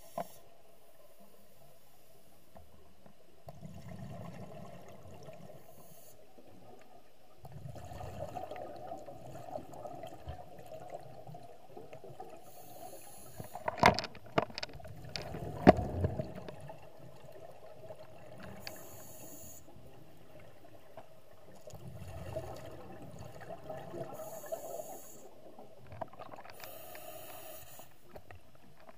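Scuba diver breathing through a regulator underwater: a hissing inhale alternating with a rumbling burst of exhaled bubbles every few seconds. Two sharp knocks come a couple of seconds apart near the middle.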